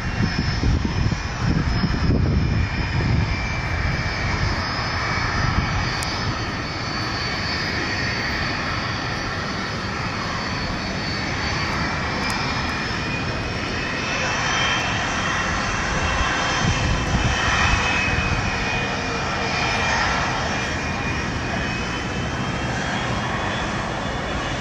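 Boeing 757's two jet engines running at taxi power: a steady rumble with a high turbine whine that drifts slightly in pitch in the second half.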